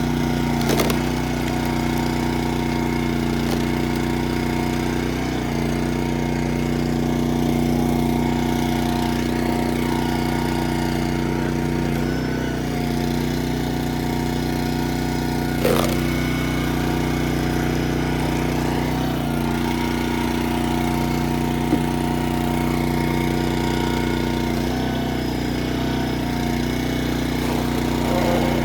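An engine running at a steady, unchanging speed, with a few short knocks now and then.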